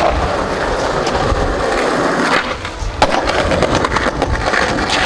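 Skateboard wheels rolling on concrete, with a couple of sharp knocks from the board about two and a half and three seconds in.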